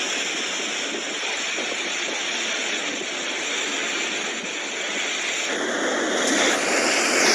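Steady rushing noise of storm floodwater and heavy rain during a cyclone. The sound changes abruptly about five and a half seconds in, as the footage cuts to another clip.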